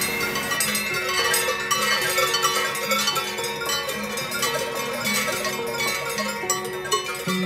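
Large cowbells on a herd of walking cows clanking irregularly, starting about half a second in, over background music with held notes.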